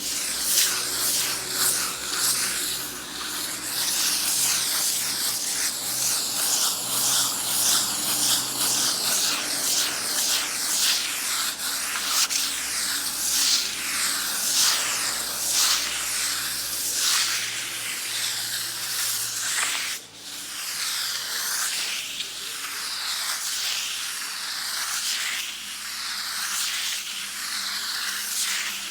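Sandpaper rubbed back and forth against a wall in repeated scratchy strokes, with a brief break about twenty seconds in.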